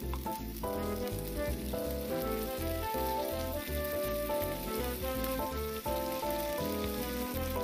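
Fish pieces sizzling and frying in a non-stick pan as they are stirred with a spatula, under background music with a melody and a pulsing bass line.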